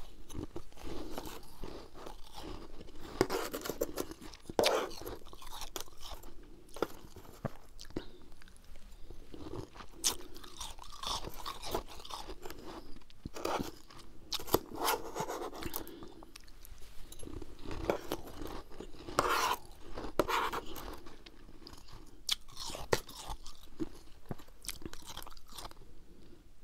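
Mouthfuls of freezer frost chewed close to a clip-on microphone: a dense run of irregular crunches, coming in clusters.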